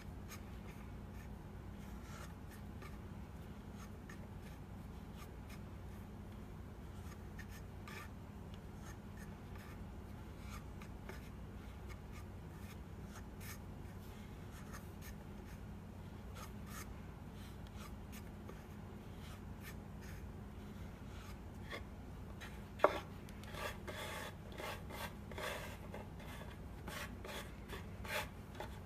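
Small pieces of pasta dough pressed and rolled across a ridged wooden gnocchi board into cavatelli: a soft, repeated rubbing scrape over a steady low hum. Late on comes one sharp knock, then a run of small clicks and taps on the wood.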